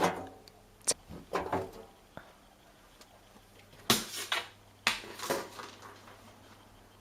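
Handling noises as laundry is loaded into a washing machine drum: a scatter of short knocks and rustles, about seven in the first five seconds, then quiet.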